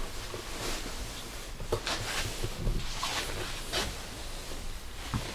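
Rustling of clothing and bags being handled, in short swishes with a few light knocks, over a steady low rumble.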